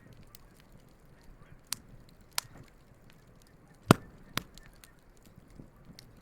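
Wood campfire crackling, with many small ticks and four sharp pops, the loudest about four seconds in.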